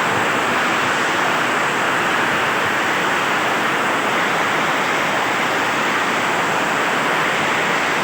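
Heavy rain pouring down, a steady, even hiss with no separate hailstone ticks standing out.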